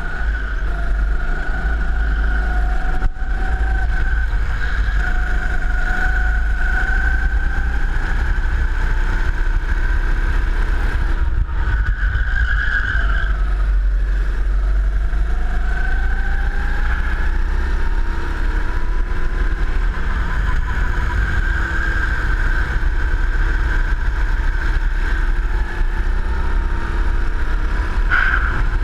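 Go-kart engine running at speed, its revs rising and falling through the corners, with heavy wind buffeting on the onboard camera's microphone.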